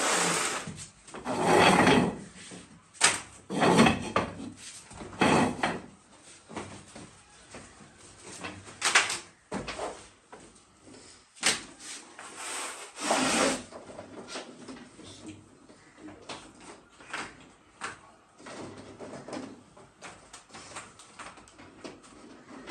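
Irregular knocks, clatters and scraping of objects being handled and set down, busiest in the first half.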